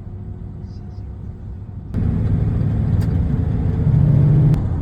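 Car driving along a road: steady engine and tyre rumble that jumps abruptly louder about two seconds in, with a stronger low hum near the end.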